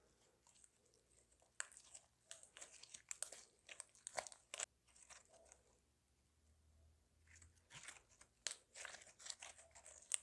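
Slime being squished and stretched by hand, with sticky crackles and pops in two bursts and a short pause near the middle.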